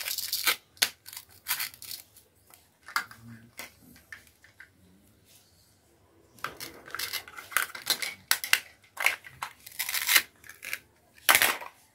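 Plastic toy fruit being cut apart with a plastic toy knife: short rasping tears as the Velcro-joined halves are pulled apart, mixed with clicks and knocks of the plastic pieces being handled. The tears come in scattered bursts, with a quieter stretch before a busier run a little past the middle.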